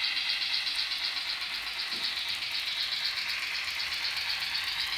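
N gauge model train running on the layout track: a steady metallic rattle of wheels on rail with a fast, even pulsing.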